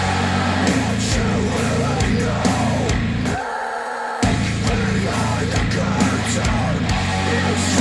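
Heavy rock music played through a pair of Focal Chora 806 bookshelf speakers driven by a Cambridge Audio CXA81 amplifier. About three and a half seconds in, the bass and drums cut out for under a second, then the full band comes back in.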